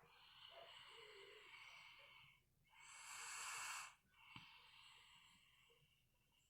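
Soft snoring: three slow, airy breaths of a sleeper, the middle one the loudest and the last one fading away.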